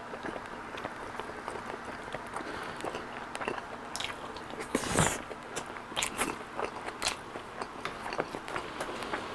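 Close-miked eating sounds: a spoonful of rice is scooped from a king crab shell and chewed, with wet mouth clicks and soft crunching. There is one louder noisy sound about five seconds in.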